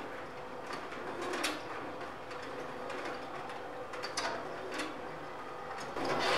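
Metal roller shutter lowering over a window, its slats rattling with a steady run of small clicks, louder near the end as it closes.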